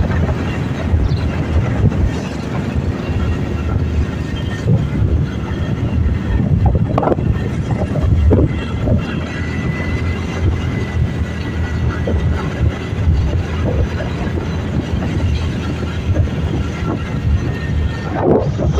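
Motorcycle riding at road speed: a steady low rumble of engine and rushing air.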